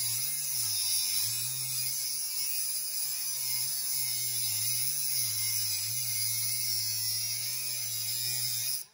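Cordless rotary tool with a cut-off disc slowly cutting through an M4 threaded bar: a steady motor whine whose pitch dips and recovers as the disc bites, under a harsh high grinding hiss. It stops abruptly near the end.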